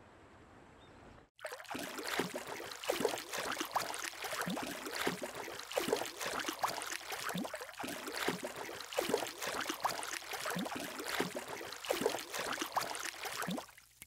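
Irregular water sloshing and lapping with small splashes, starting suddenly about a second in after a moment of near-quiet and cutting off just before the end.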